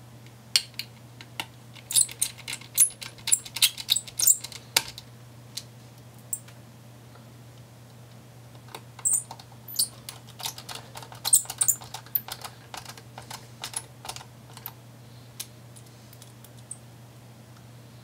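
Small Phillips screwdriver driving the heatsink screws into a laptop's graphics cooler: runs of light, quick clicks and ticks. The clicks come in two bursts, the second starting about halfway through, over a steady low hum.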